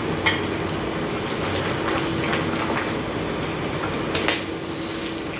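Utensils clinking against bowls and the hot pot, a few light clinks and one sharper one about four seconds in, over a steady background hum.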